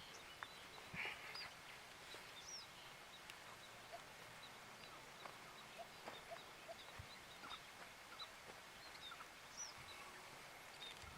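Quiet outdoor ambience with faint, sparse bird chirps: short high calls scattered through, and a few light ticks.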